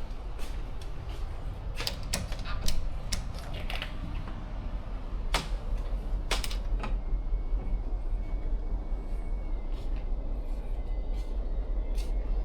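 Cruise ship public-area ambience: a steady low rumble, with a run of sharp clicks and knocks over the first seven seconds and a faint high tone in the second half.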